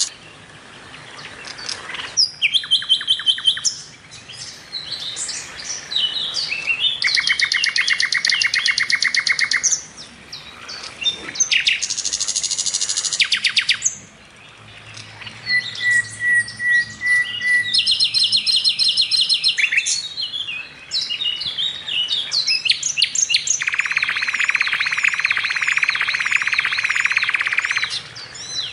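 A songbird singing a long, varied song: phrase after phrase of rapid trills, fast repeated notes and whistled glides, each a second or a few long, with short pauses between them.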